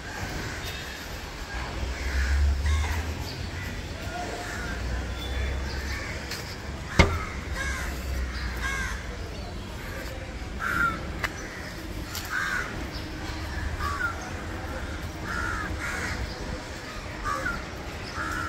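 Crows cawing repeatedly, short calls every second or two, over a low rumble. A single sharp clack comes about seven seconds in.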